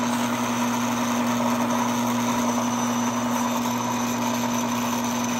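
Electric motor of a Timken-type oil wear-test machine running steadily, spinning the test ring with a constant hum during a plain-oil test run.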